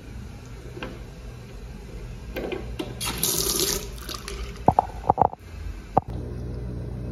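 Water running from an old chrome cross-handle faucet into a porcelain sink basin, rising to a rush for about a second. A few short, sharp squeaks follow about five seconds in as the tap is worked, then a click.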